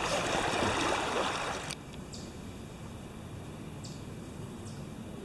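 Rushing river water around a canoe running a riffle, with the splash of a paddle, cutting off abruptly under two seconds in. A quieter steady background follows, with a few faint, short high chirps.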